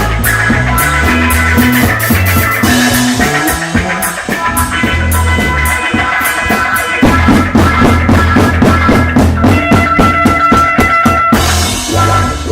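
Funk-rock band jam: drum kit, electric guitar and deep bass notes playing together. The drumming gets busier and quicker for a few seconds in the second half, then the music drops back briefly near the end.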